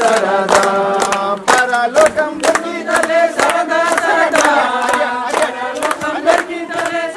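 A group of people singing together in unison, clapping their hands in time about twice a second.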